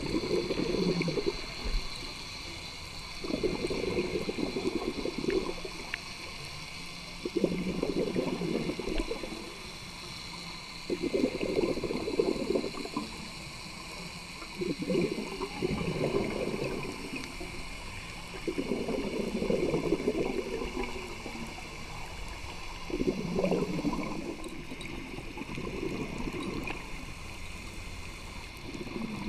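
Scuba diver's regulator breathing underwater: bursts of exhaled bubbles gurgling from the exhaust valve, each lasting one to two seconds and coming about every four seconds, with quieter inhalations between.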